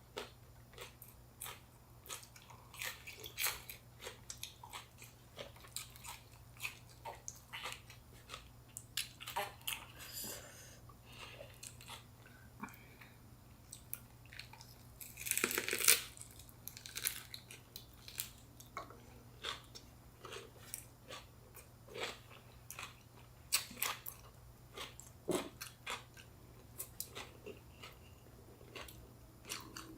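Close-up chewing and biting of fresh rice-paper spring rolls filled with crisp raw vegetables: irregular wet mouth clicks and soft crunches, with a louder burst about halfway through.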